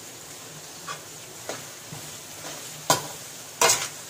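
Sliced onions sizzling in oil in a metal kadai as they are sautéed, with a metal spatula scraping and knocking against the pan as it stirs. A steady hiss runs throughout, and the spatula strokes come a few times, the loudest two in the last second and a half.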